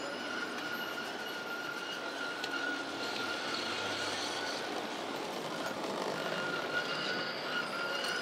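Model railway locomotive running along its track, a steady motor whine over the running noise of its wheels on the rails.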